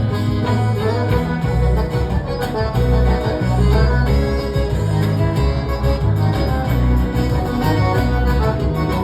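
Forró music in an instrumental passage without singing: a melody of held notes over a steady, pulsing bass beat.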